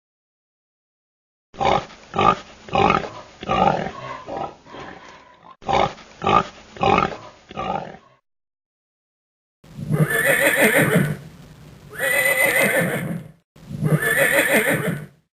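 Horse neighing: first two runs of short, rapid calls, then after a pause three long calls about two seconds apart.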